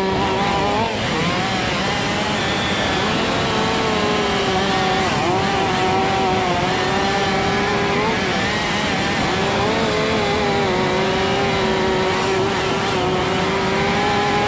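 Two large two-stroke chainsaws, a Stihl MS500i and a 460-style clone, running at full throttle while bucking logs. Their engine pitch sags briefly a few times as the chains load in the cut and then recovers.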